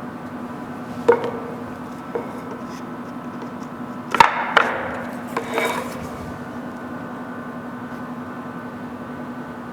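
Wooden parts knocking and tapping as they are handled and fitted together with glued joints. A handful of sharp knocks comes in the first six seconds, the loudest about four seconds in, over a steady low hum.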